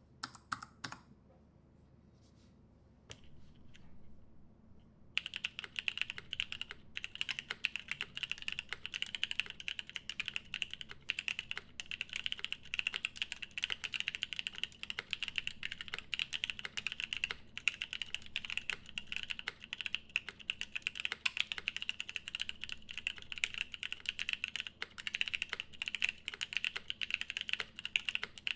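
Custom Unnamed75 mechanical keyboard with lubed Paco switches, a polycarbonate plate and GMK keycaps being typed on. A few scattered keystrokes come first, then fast continuous typing from about five seconds in.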